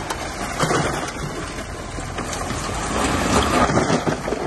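Bulldozer at work: its diesel engine running as a low rumble under irregular crunching and knocking of dirt and stone being pushed.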